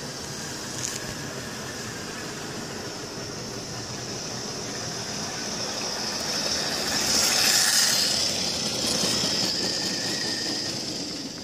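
Model train running on its track: a Hornby BR Class 4F 0-6-0 locomotive's motor and the wheels of its coal wagons rolling over the rails. It grows louder as the train passes close, loudest about seven seconds in, then dies away.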